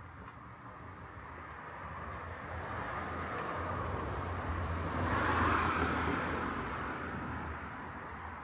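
A vehicle passing by, its noise swelling steadily to a peak about five seconds in and then fading away.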